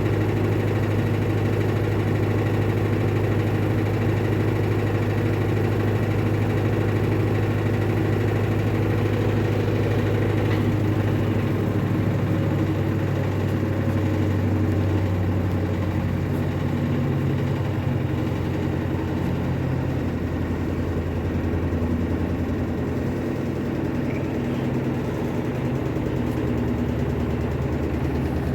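Electrolux Turbo Economia LTD15 15 kg washing machine running through its wash cycle: a steady motor hum that drops to a lower pitch about halfway through.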